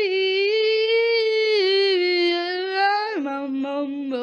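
A boy's long, drawn-out wail of exaggerated fake crying, held on one high note that wavers slightly, then dropping lower about three seconds in with a few sobbing catches before holding again.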